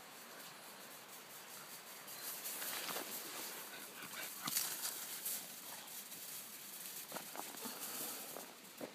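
Dogs running through snow and over gravel: scattered crunching paw footfalls, loudest about halfway through as one dog bounds close by.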